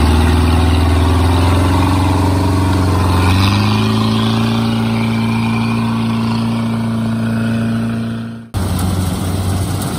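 Engine of a rice-hauling tractor carrying a full load of rice sacks, running steadily; about three and a half seconds in its pitch rises and holds higher as it speeds up. It cuts off abruptly near the end and a different engine takes over.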